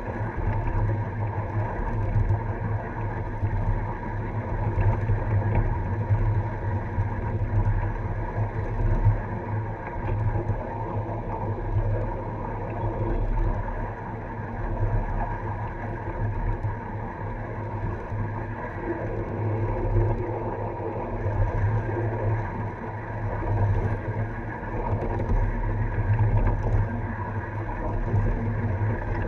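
Steady rumble of a ride-on miniature train's cars rolling along the rails, heard close to the rear car's wheels, with the loudness rising and falling slightly.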